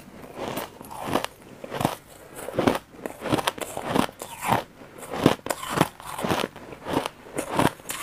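A person chewing a mouthful of crushed ice, crunching it between the teeth in steady bites about one and a half times a second, picked up close by a clip-on microphone.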